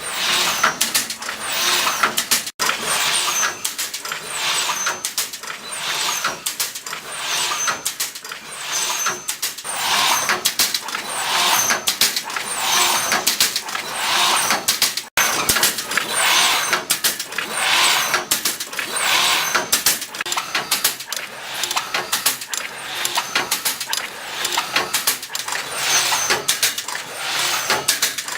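MW-2 multi-contact welding machine for wire mesh running, working in a steady cycle of noisy strokes with clicks, a little faster than one a second.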